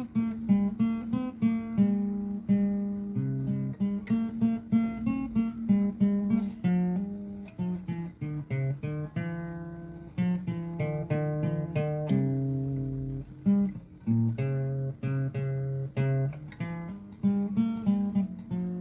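Background music: a melody of quickly plucked acoustic guitar notes.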